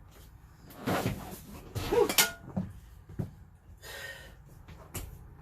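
Scattered metallic clinks and knocks from hand tools working on bolts, with a short falling squeak about two seconds in.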